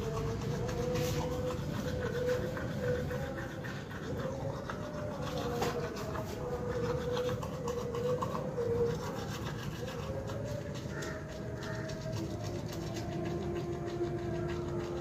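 A toothbrush scrubbing teeth, a rough rubbing and scratching, with a wavering tone underneath.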